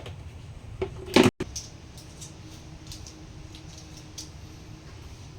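Handling knocks and taps from an unboxing, with one loud, sharp knock about a second in that cuts out abruptly, then faint scattered clicks over a steady low hum.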